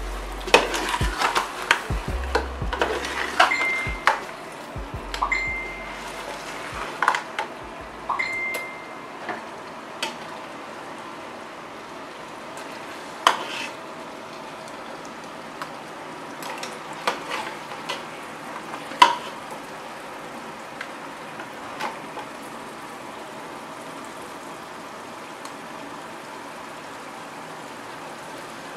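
A metal spoon stirring crab roast in a steel pot, with sharp clinks and scrapes against the pot and a few short squeaks. The clinks are frequent at first and then only occasional, over a steady sizzle of the frying masala.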